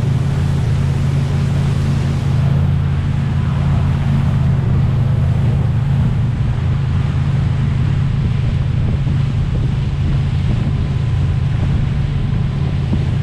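Motorboat engine running steadily, a constant low hum mixed with the rush of wind and water.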